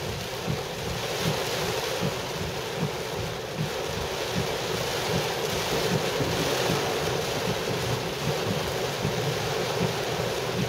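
Heavy rain falling hard on a car's roof and windshield, heard from inside the cabin while driving: a steady rushing noise with no letup.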